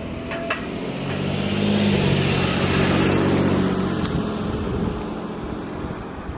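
A road vehicle driving past, its engine growing louder to a peak about halfway through and then fading away as it passes.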